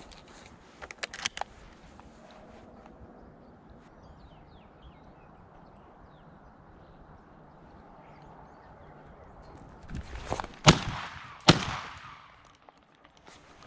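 Two shotgun shots, less than a second apart, fired at a rabbit bolted from its warren by ferrets; the first shot missed.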